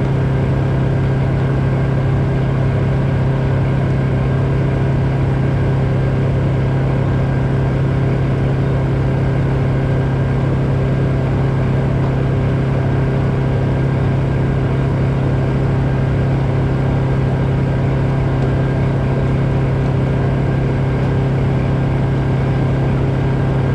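A machine running steadily with a loud, even low hum and a few steady higher tones, unchanging throughout.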